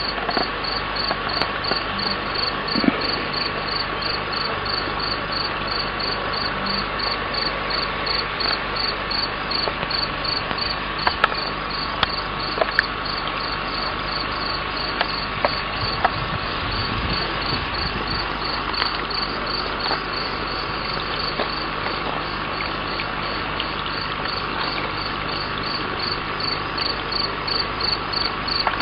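Insect chirping in a steady, even rhythm of about two short chirps a second, over a constant background hiss.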